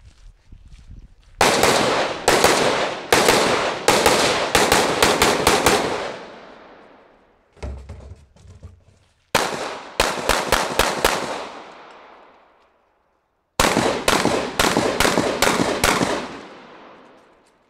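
Gunshots in three rapid strings of several shots each, every shot followed by a long echoing tail.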